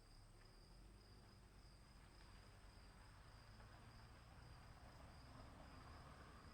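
Crickets chirping, faint and steady: one continuous high trill with a second, higher band above it, over a low rumble.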